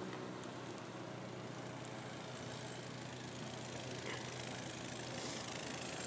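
Steady wind of a snowstorm, with a low steady hum underneath.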